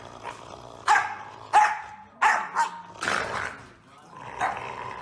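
Dog barking, a run of about five short barks in quick succession followed by a softer one.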